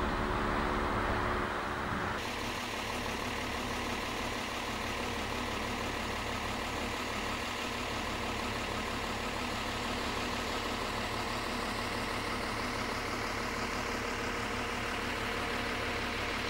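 A steady mechanical hum under a hiss, its tone changing abruptly about two seconds in.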